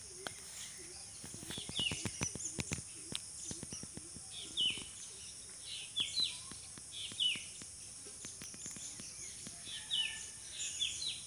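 Field ambience: a steady high insect drone with a bird repeating short falling chirps every second or so. Scattered sharp clicks and rustles, thickest in the first few seconds, sit on top.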